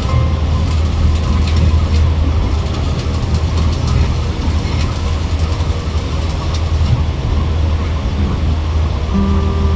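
Heavy engine running steadily with a deep low drone, with clicking and rattling over it for the first seven seconds.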